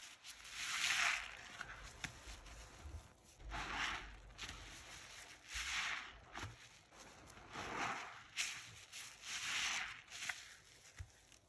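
Foam-soaked sponges squeezed in a gloved fist, giving wet squelches and crackling suds: about six squeezes a second or two apart, the first the loudest.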